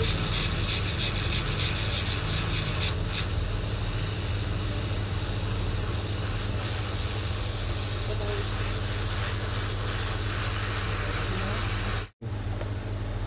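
Hot air rework station blowing on a MOSFET to desolder it from an LED TV's power supply board: a steady airy hiss over a low hum, cutting out for a moment near the end.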